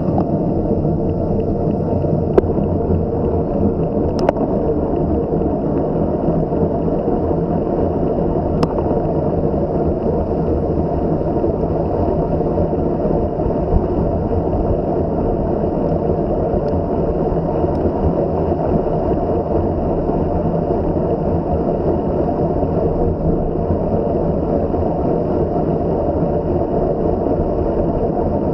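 Steady low wind rumble buffeting the microphone of a camera on a moving bicycle, with a few faint clicks in the first few seconds.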